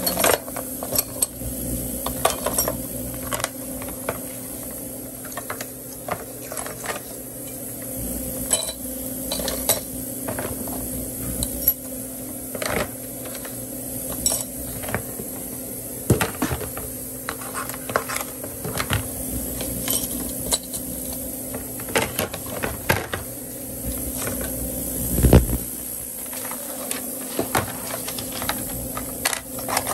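Steel dental instruments clinking and plastic trays clacking as they are sorted into a plastic instrument cassette and handled, in scattered clicks throughout over a steady low hum. A louder dull thump comes near the end.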